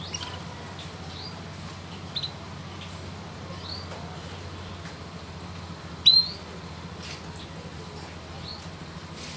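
Young canary chirping: single short, rising cheeps about once a second, the loudest about six seconds in, over a steady low hum.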